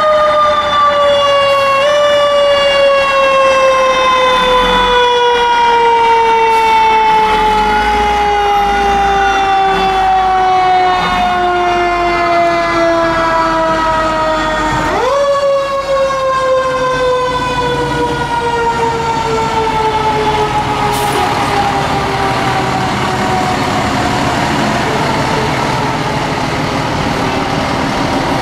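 Fire truck's mechanical siren winding down in a long, slowly falling wail, spun up again about fifteen seconds in and coasting down once more, over the low rumble of the truck engines.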